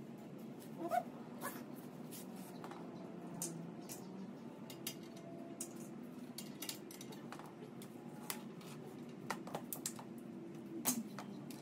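Scattered light metallic clicks and clinks of hand tools and parts being handled at a car's wheel hub, over a low steady background hum, with a short rising squeak about a second in.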